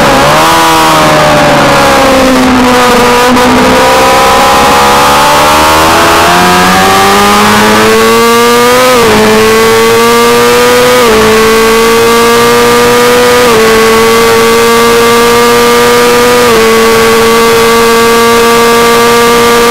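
600cc race motorcycle engine at racing speed: its pitch sinks as the bike slows through a corner in the first second, then climbs under full throttle, and with upshifts about every two to three seconds it holds near the top of the rev range down the straight. Heavy wind rush runs under the engine.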